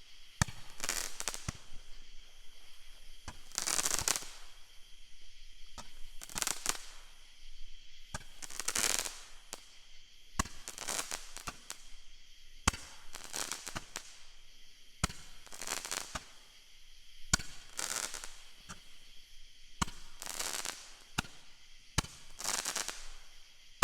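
Two Roman candles firing: a sharp launch pop about every two seconds, each followed by a short hissing burst lasting up to a second.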